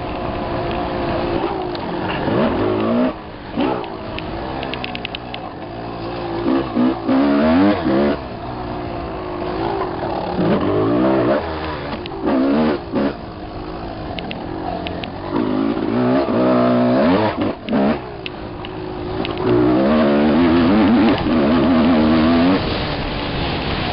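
Dirt bike engine revving hard and easing off again and again, its pitch climbing and falling with each burst of throttle. The throttle is snapped shut briefly several times.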